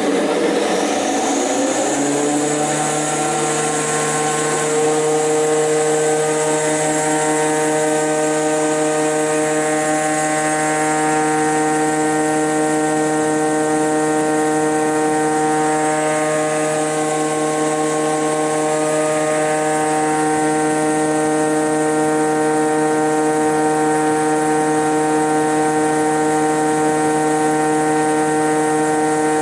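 WOLF AD 510S combination jointer-planer's motor and cutter block run up to speed in the first two seconds after switch-on, rising in pitch. They then run steadily without load, with a steady whine of several tones.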